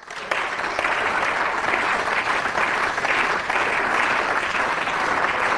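Members of a parliament applauding: a steady round of clapping that starts abruptly and keeps up.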